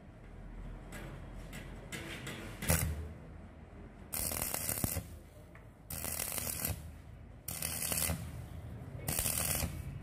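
Stick (arc) welding with a thin 2.3 mm electrode on thin-walled square steel tube: the arc crackles and sizzles in short bursts of under a second, struck and broken four times in the second half, a stop-start way of welding thin metal so it does not burn through.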